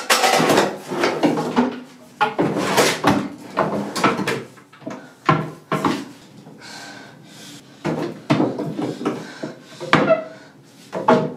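Wooden vanity drawers and cabinet doors being pulled open and pushed shut, over and over, with many separate knocks and sliding scrapes.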